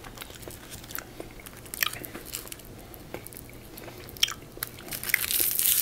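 Close-up chewing of a Lindor chocolate truffle, with soft scattered mouth clicks. From about five seconds in, a foil wrapper crinkles as the next truffle is unwrapped.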